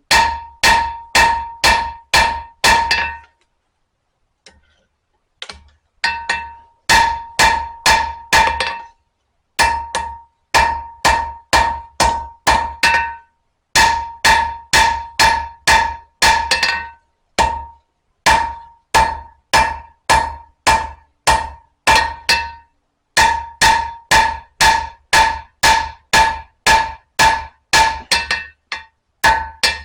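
Blacksmith's hammer striking hot spring steel on an anvil, about two blows a second in runs with short pauses and a longer break a few seconds in; each blow rings. The steel is being drawn out, forged longer and thinner for a knife blade.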